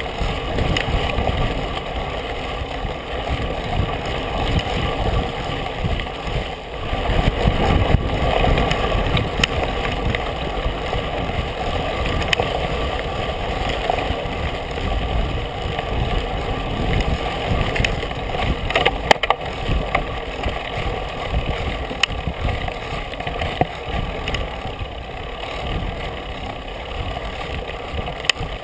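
Steady rumble and wind buffeting on the microphone of a camera mounted on a wide-tyred mountain bike rolling fast over a dirt trail, with rattles from the bumps and a few sharp knocks about two-thirds of the way through.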